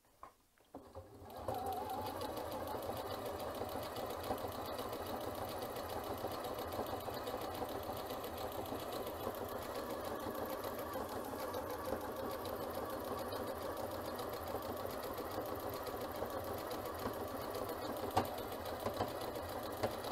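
Janome C30 electric sewing machine sewing steadily, starting after about a second and a half, running an overcasting stitch along a seam edge. About 18 seconds in, a single sharper click as the needle passes over the nylon teeth of a zipper.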